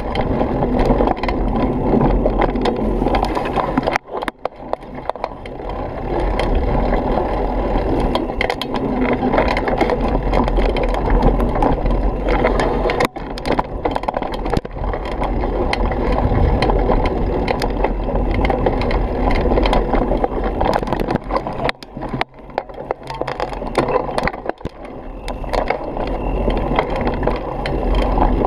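Mountain bike riding over a rough dirt trail: a continuous rumble of tyres on dirt and rocks, with the bike and its handlebar-mounted camera rattling and knocking over the bumps. The noise drops briefly a few times.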